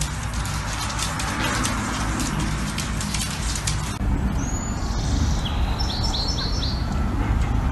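Scattered sharp clicks and crackle. Then, after a cut, a small bird chirps: a single call, then a quick run of four short falling chirps, over steady wind and traffic rumble.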